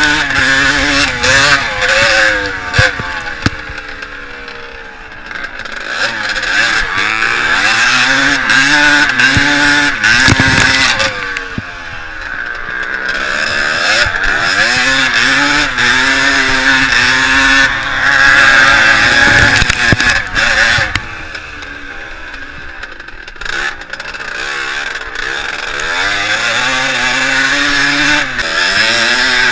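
Classic twinshock motocross bike engine revving hard under load, its pitch climbing and falling as it is ridden. It eases off and drops away three times before pulling hard again. A steady rush of wind and sharp ticks of flying dirt sit over it.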